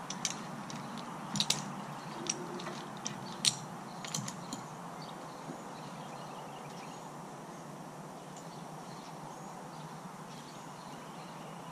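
Scattered light metallic clicks and clinks, bunched in the first few seconds, from fencing tools and barbed wire being handled. After that only a steady faint outdoor hiss remains.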